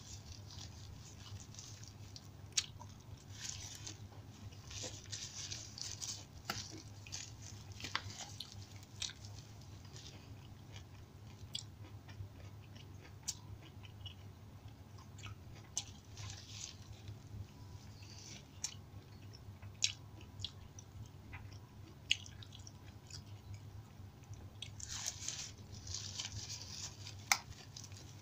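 A person chewing a mouthful of rice and side dishes, close to the microphone: soft wet chewing sounds with scattered sharp clicks, over a steady low hum.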